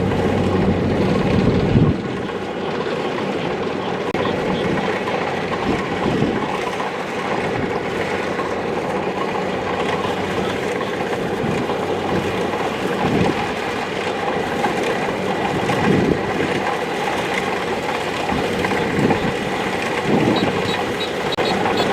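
Kubota DC-70 Plus combine harvester at work, its diesel engine and machinery running with a steady mechanical clatter. The heavy low rumble eases about two seconds in, then the noise carries on at an even level with slight swells.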